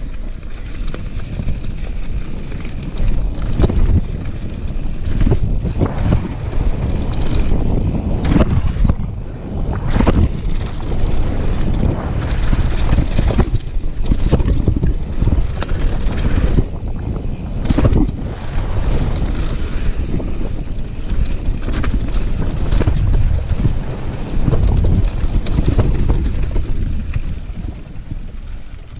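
Wind rushing over the mountain bike's onboard camera microphone as the bike descends, with tyres rolling over gravel and dirt. Frequent short knocks and rattles come from the bike hitting bumps.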